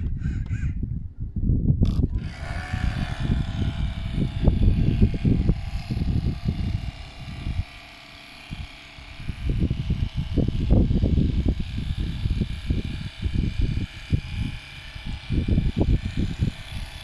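Wind buffeting the microphone in uneven gusts, over a fainter steady hiss.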